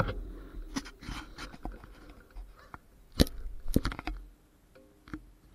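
Mountain bike rolling to a stop on a rough asphalt lane: wind noise on the microphone dies away in the first second, leaving scattered clicks and knocks from the bike, with the sharpest knocks about three to four seconds in.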